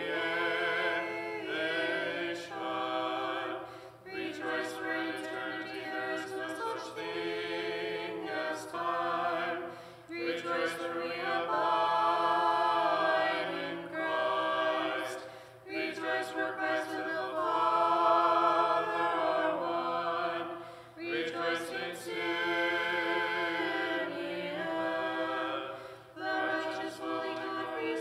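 Small choir singing an Orthodox hymn a cappella in several-part harmony, in phrases a few seconds long with short pauses between them.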